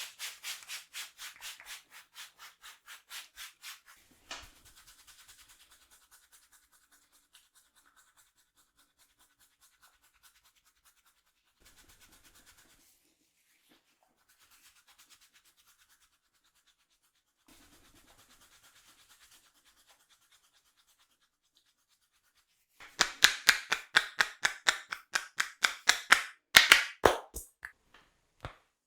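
Hands scratching and rubbing vigorously through hair on the scalp in fast, even strokes, several a second. It is loud for the first few seconds, faint through the middle and loud again for the last six seconds, with a few sharp snaps near the end.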